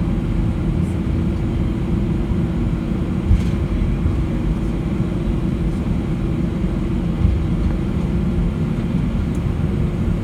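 Steady low rumble inside the cabin of an Airbus A320-200 on the ground, with a steady hum running through it and a couple of light knocks.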